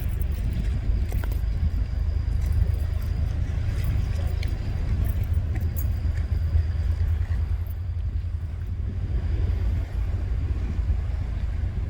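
Tugboat engines running with a deep, steady rumble, and a faint high whine above it.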